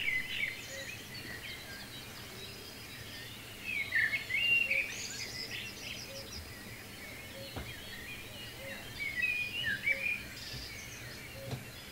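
Small songbirds chirping and singing in short, high, quick phrases, busiest around four seconds in and again around nine seconds in, over a faint steady hiss.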